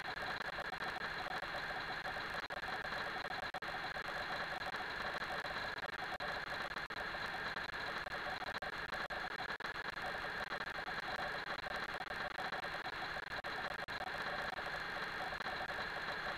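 A steady mechanical whirring hum with a fine crackle through it, unchanging throughout.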